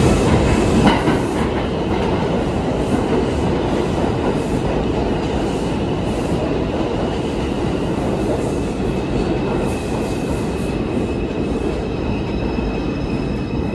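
New York City subway train pulling into an underground station: a steady heavy rumble with wheels clacking over the rail joints. A thin high whine comes in during the second half as the train slows.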